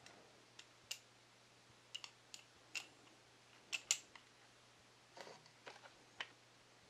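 Faint, irregular small clicks and taps, about a dozen, from a metal clutch pencil being handled and fiddled with in the hand, the loudest a quick pair near the middle.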